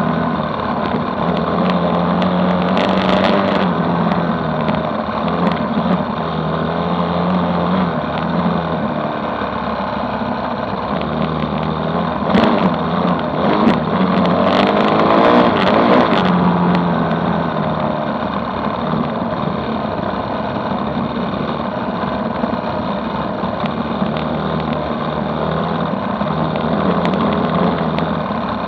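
Motorcycle engine running at riding speed on a dirt road, its note stepping up and down a little with the throttle, with wind rushing on the microphone. A few sharp knocks come about halfway through.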